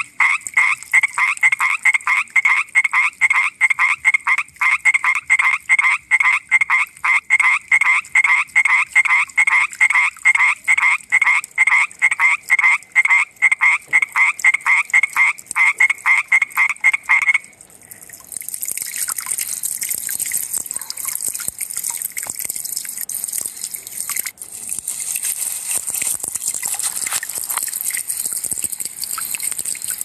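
Common tree frog calling: a fast, even series of loud croaks, about three a second, that stops abruptly a little past halfway. After it comes a steady high hiss with faint crackles.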